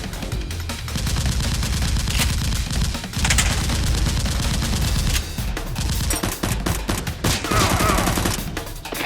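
Rapid volleys of gunfire-like shots, dense and almost continuous, over background music.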